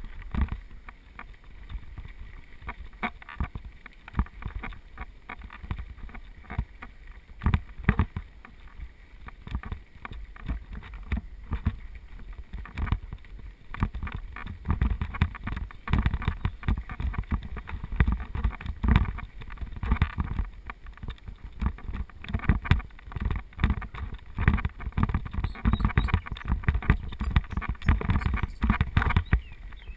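Bicycle descending fast on a rough dirt track: wind rushing on the microphone, a low rumble from the tyres and frequent knocks and rattles as it goes over bumps, growing heavier about halfway through.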